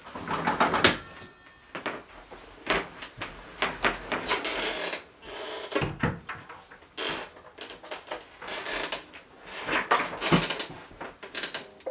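Handling noise from a person in a small room: a roller shutter rattling as it is hauled up near the start, then irregular knocks, clicks and rustling from a desk chair and objects being moved about on a desk.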